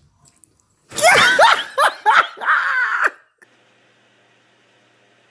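A voice letting out a burst of high-pitched shrieking cries, each sliding up and down in pitch, for about two seconds; it stops abruptly, leaving a faint steady hiss.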